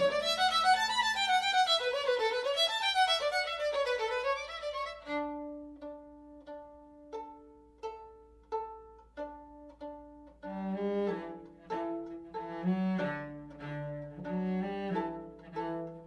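Live violin and cello duet. For the first five seconds the violin plays a flowing bowed melody that glides up and down, then gives way to sparse, short separated notes. About ten seconds in, the cello comes in with low bowed notes under them.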